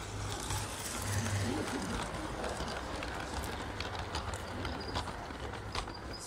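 LGB garden-scale model train, a small steam locomotive with coaches, rolling close past on its track: running noise with many wheel clicks over rail joints and a steady low hum beneath.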